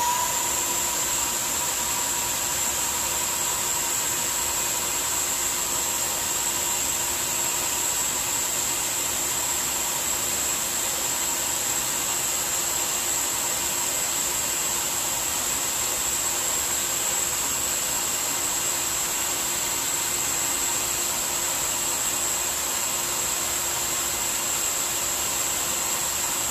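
Shop vac run on its blow setting as a grooming blower, a super loud steady rush of air with a high whine, blown through an English Angora rabbit's long wool to separate the matted strands. It is switched off at the very end and winds down.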